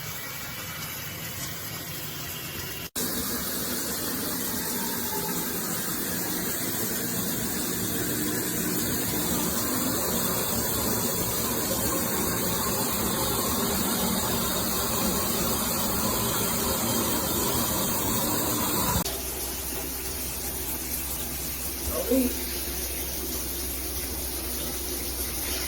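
Shower water spraying steadily from a rainfall shower head, a continuous hiss whose sound changes abruptly about three seconds in and again about 19 seconds in. A brief, louder pitched sound about 22 seconds in.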